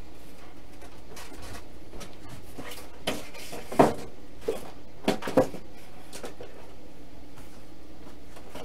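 Light knocks and clunks of model airplane parts being handled and set into a plastic building stand. About five knocks come between three and five and a half seconds in, the loudest near four seconds, over steady background noise.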